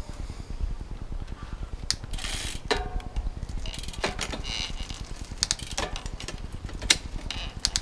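Shimano 105 11-speed drivetrain with an 11-40 cassette, its cranks turned by hand: the chain runs over the sprockets with a series of sharp clicks and clunks as the gears are shifted.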